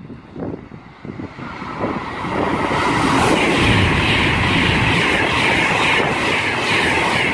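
Class 390 Pendolino electric train approaching and running past, the rush of its wheels on the rails and the air around it building over about two seconds into a loud, steady noise.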